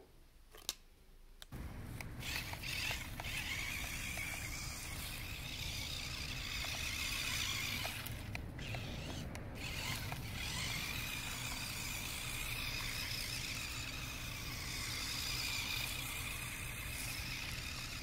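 Small electric motors and gearboxes of a remote-control stunt car whining steadily as it drives over dry grass, starting about a second and a half in.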